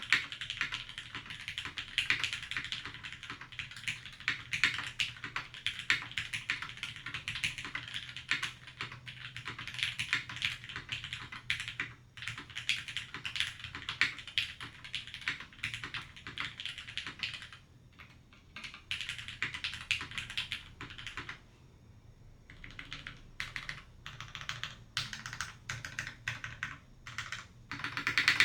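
Typing on a gasket-mounted Keycult No.2 TKL mechanical keyboard with an aluminium plate, lubed and filmed Gateron Tangerine linear switches and GMK keycaps: a fast, steady run of keystrokes that thins to a few scattered presses twice in the last third before picking up again.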